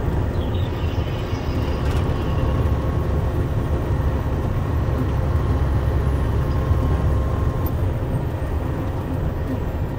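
Semi truck with a flatbed trailer travelling at highway speed: a steady low rumble of engine and tyres on the road.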